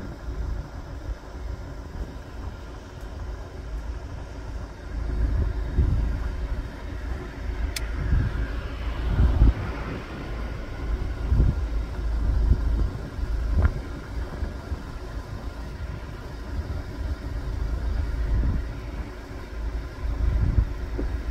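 Road traffic: cars passing on a nearby road, a low rumble that swells and fades every few seconds. Two short sharp clicks cut through it, about a third and two thirds of the way in.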